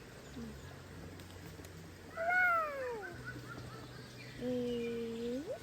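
An animal calling twice: a falling cry about two seconds in, then a longer, lower call that holds steady and rises at its end.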